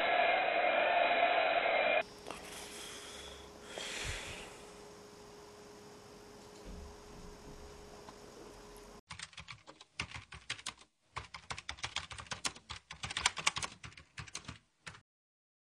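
A loud sound cuts off abruptly about two seconds in, leaving faint room tone. Then, from about nine seconds, comes a quick, irregular run of clicking keys being typed for around six seconds.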